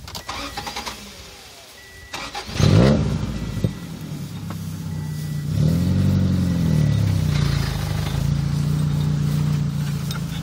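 A motor engine starts with a loud burst about two and a half seconds in, revs up and back down around six seconds, then runs steadily at a low hum.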